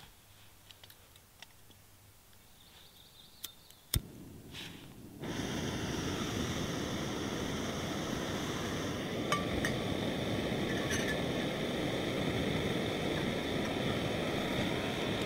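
Backpacking canister gas stove being lit: a few small clicks and one sharp click about four seconds in, then the burner catches about a second later and runs with a steady rushing hiss. A metal pot clinks onto the stove a few times while it burns.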